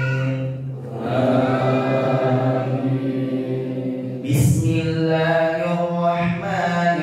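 An imam's melodic, chanted Quran recitation over a microphone, with long drawn-out notes. About four seconds in there is a short breath before the next phrase.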